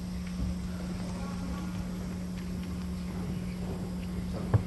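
Room tone of a large gymnasium: a steady low hum with faint distant murmuring voices, and a single sharp knock near the end.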